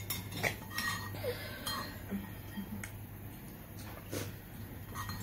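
Metal spoons clinking and scraping against ceramic bowls while eating, a handful of separate sharp clinks spread through.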